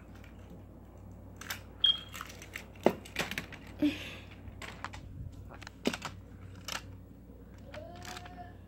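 Irregular clicks, taps and knocks of objects being handled close to the microphone, with a few louder sharp knocks in the middle and a brief faint voice-like sound near the end.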